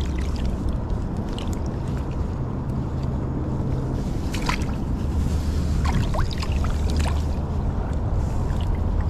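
Steady low rumble of flowing river water and wind on the microphone, with scattered faint clicks and short chirps.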